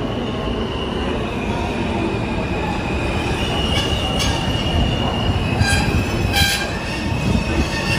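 New York City subway train running along the station track: a steady rumble of steel wheels on rail with a thin, high wheel squeal, and several brief sharp screeches between about four and six and a half seconds in.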